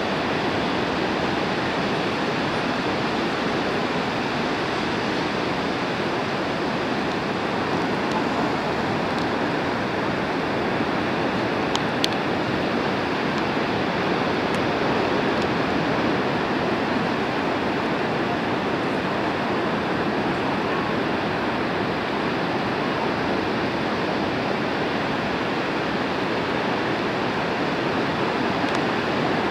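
Steady, unbroken noise of ocean surf breaking on a sandy beach.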